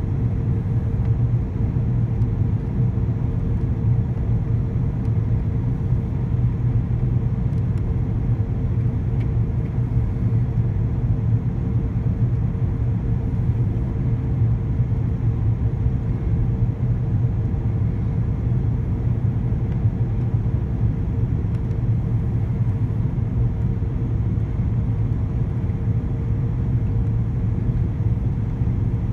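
Steady cabin noise inside an Airbus A340-600 on approach: the low, even rumble of its four Rolls-Royce Trent 500 engines and air rushing past the fuselage, with a steady hum above it.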